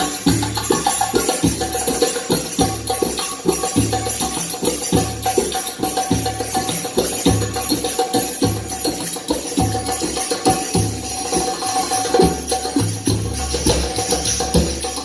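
Percussion-heavy music with a steady drum beat, a held melodic tone and continuous high jingling over it.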